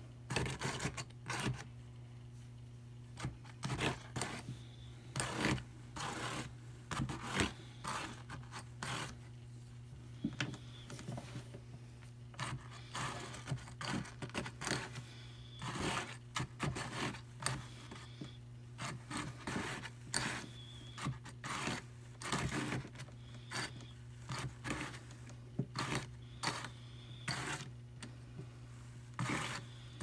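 Metal doffing pick scraped along the fine wire carding cloth of a hand-crank drum carder, lifting a blended batt of targhee wool and Angelina sparkle off the drum. Irregular scratchy strokes, roughly one a second, over a steady low hum.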